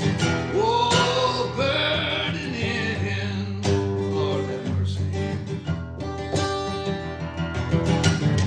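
Acoustic guitar strummed and picked as song accompaniment, with a wordless vocal line sliding up and down in pitch during the first few seconds.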